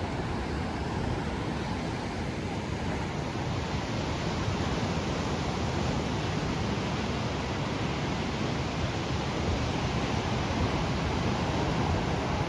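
Steady rush of ocean surf with wind, an even hiss that grows slightly louder toward the end.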